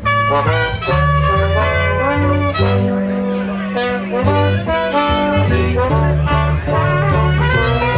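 Live traditional jazz band playing an instrumental chorus: brass horns carry a bending melody over a stepping bass line and rhythm accompaniment.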